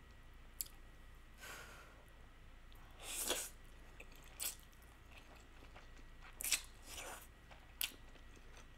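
Faint mouth sounds of a person eating stir-fried instant noodles: a slurp of noodles about three seconds in, then scattered short chewing sounds.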